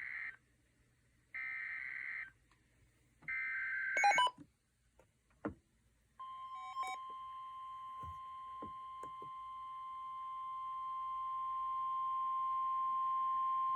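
NOAA Weather Radio alert: short buzzy SAME header data bursts, then, about six seconds in, the steady 1050 Hz warning alarm tone, slowly growing louder. This is the opening of a winter storm warning broadcast. A few faint clicks fall between them.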